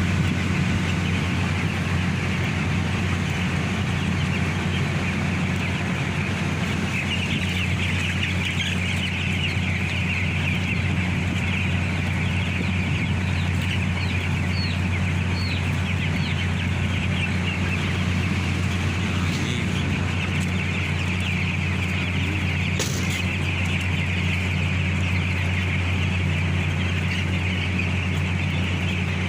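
A large flock of broiler chickens chirping and clucking all at once in a continuous chatter, over a steady low machine hum. A single sharp click sounds a little past two-thirds of the way through.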